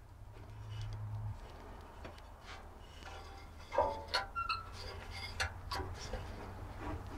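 Light clicks and knocks of a wooden dowel arrow shaft being handled and shifted in a router-table jig, scattered and growing more frequent from about four seconds in, over a low steady hum.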